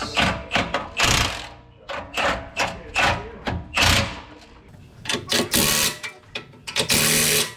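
Cordless impact wrench hammering a bolt in a string of short bursts, the last two longer, as the rear-axle traction bar and shock mount hardware is run in and snugged down.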